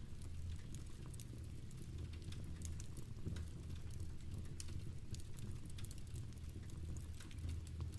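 Fireplace fire crackling with irregular small pops, mixed with the patter of rain, over a steady low rumble.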